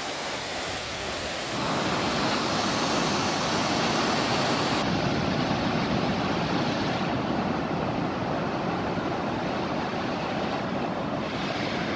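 White water of a mountain river rushing down a boulder cascade, a steady, dense rush of water noise that grows louder about a second and a half in.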